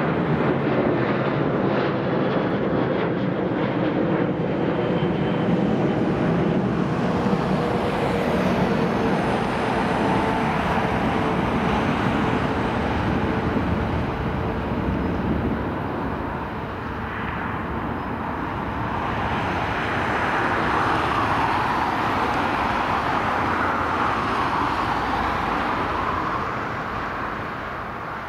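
Rolls-Royce RB211 turbofans of a Boeing 757-300 running loudly during its landing roll just after touchdown. An engine whine falls in pitch over the first ten seconds, the sound swells again about two-thirds of the way through, and it fades near the end as the jet rolls away.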